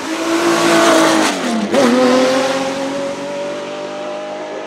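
Porsche 917K's air-cooled flat-12 race engine passing close under power. Its pitch falls sharply about a second and a half in, then climbs steadily as the car pulls away.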